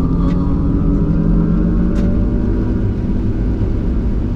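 Cabin noise of a GMC Hummer EV, an electric pickup, accelerating on a dirt off-road course: a steady, loud low rumble of tyres and drivetrain with no engine note. Two light knocks come through, about a third of a second in and about two seconds in.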